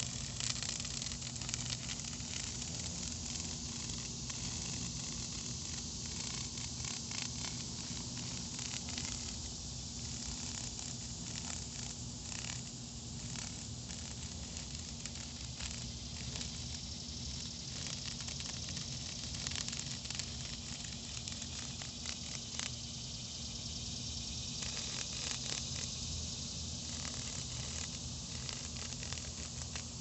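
Cicada buzzing: a harsh, steady hiss with brief crackling spurts throughout.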